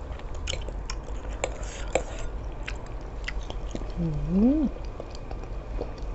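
A person chewing and eating close to the microphone: wet mouth clicks and smacks scattered throughout. About four seconds in comes a short hummed "mmm" that dips and then rises in pitch.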